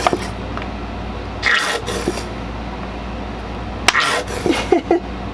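Barbecue sauce squeezed from a plastic squeeze bottle: short sputtering, squirting bursts twice, then a few quick squelchy squirts near the end, over a steady background hum.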